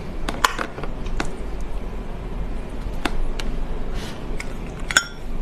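Close-miked eating-ASMR handling: scattered clicks and taps of food and utensils, with a sharp clink that rings briefly about five seconds in.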